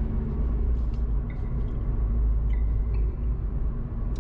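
Car driving at low speed, heard from inside the cabin: a steady low road and engine rumble with a faint even hum.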